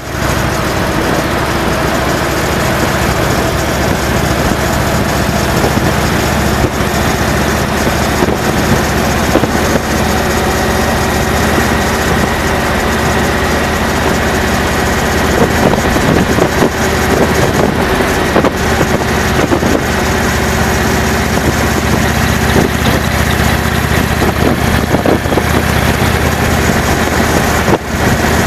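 Indian Chief Vintage motorcycle's V-twin engine running steadily at road speed as the sidecar rig cruises, heard from the sidecar.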